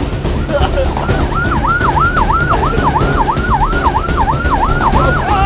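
Siren sounding in a fast rising-and-falling yelp, about two and a half sweeps a second, starting a little over a second in, over a steady low rumble.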